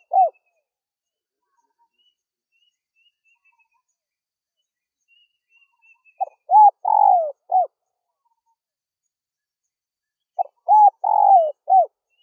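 Spotted dove cooing: two phrases about four seconds apart, each a short note, a rising-and-falling coo, a longer falling coo and a final short note, with the last note of an earlier phrase right at the start. Between phrases there are faint high chirps.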